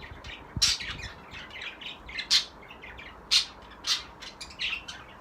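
Budgerigars chirping and squawking in short, sharp, high calls, several loud ones among softer chatter, coming irregularly.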